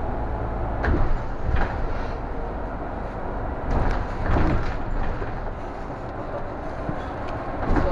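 Steady low rumble of a city bus heard from inside while it runs, broken by several short knocks and rattles.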